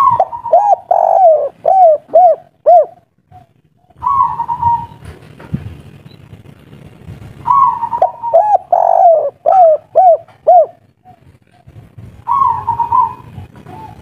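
Spotted dove of the 'kuk 3' type cooing: each phrase is a higher opening coo followed by a quick run of short arched coos. Two full phrases are heard, with a shorter one between them and another starting near the end.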